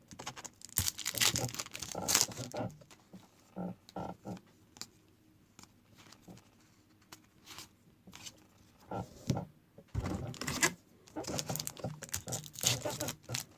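Trading-card pack wrappers being torn open and crinkled, with the cards handled, in two spells of rustling and tearing with a quiet stretch of a few seconds between.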